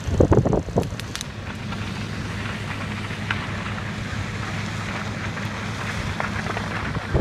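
Moving vehicle's steady road and engine hum under a rushing noise of wind on the microphone. A few loud gusts hit the microphone in the first second.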